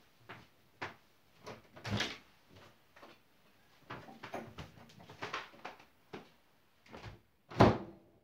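A string of irregular short knocks and clatters, about a dozen, with the loudest near the end.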